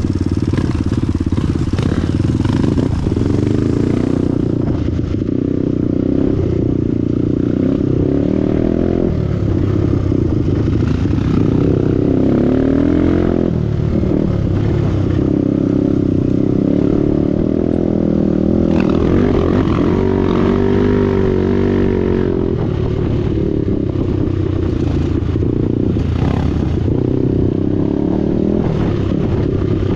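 Off-road trail motorcycle engine running on the move, its pitch rising and falling again and again as the throttle is opened and closed.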